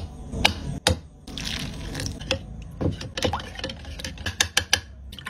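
Metal spoon clinking and scraping against a ceramic bowl while stirring powder into a thick paste: irregular sharp clicks, several in quick runs.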